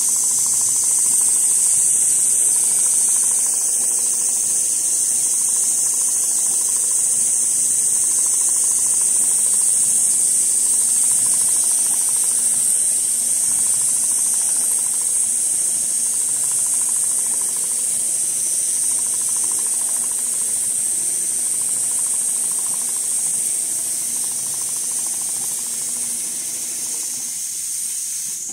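CNC flatbed leather sewing machine running a quilting pattern: a steady high hiss over a low mechanical hum from the machine, easing slightly toward the end.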